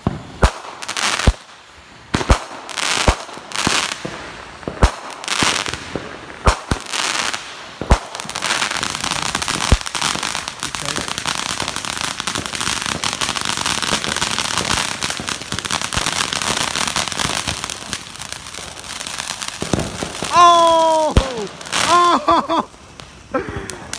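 Consumer fireworks going off: a quick, irregular run of sharp bangs and pops over the first several seconds, then the steady hissing crackle of ground fountains spraying sparks. Near the end come a few short tones that fall in pitch.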